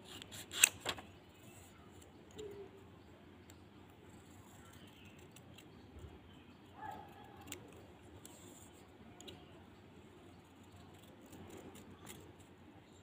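Scissors snipping through paper: a quick cluster of sharp snips under a second in, then a few faint scattered snips.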